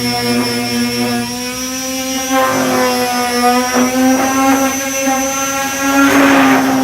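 Power sander running with a steady whine, its 240-grit disc scuffing over body filler, with short rasping strokes now and then, the loudest about six seconds in.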